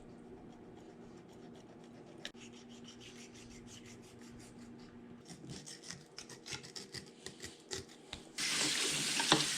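Kitchen knife cutting and scraping through a whole trout on a board: faint at first over a low steady hum, then a run of irregular scrapes and crunches from about five seconds in, and a louder steady rasping rush for about two seconds near the end.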